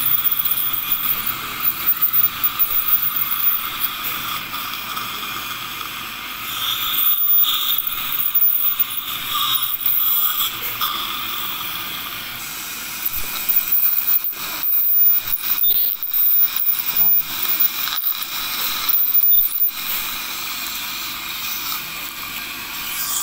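Ultrasonic dental scaler and saliva-ejector suction running during tartar removal: a steady high-pitched hiss and whine that cuts out briefly several times.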